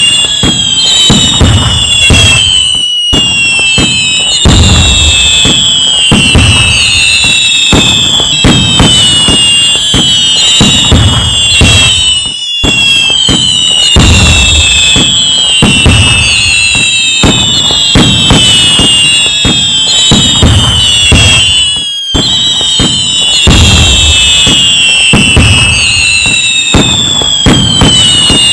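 A loud, dense fireworks barrage: continuous bangs and crackling with many whistles falling in pitch, the pattern recurring about every nine and a half seconds with a brief dip between repeats.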